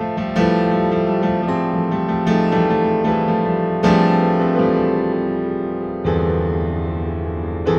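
Slow keyboard music: sustained chords struck every one to two seconds, each ringing out and fading before the next, the loudest about four seconds in.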